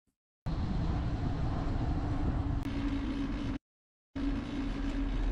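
Road and traffic noise picked up by a bicycle-mounted camera while riding: a steady rush with low wind rumble and a steady low hum. It starts about half a second in, cuts out for about half a second in the middle, and resumes.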